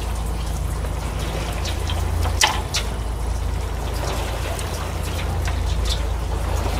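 Water washing against a fishing boat's hull over a steady low rumble, with a sharp knock about two and a half seconds in.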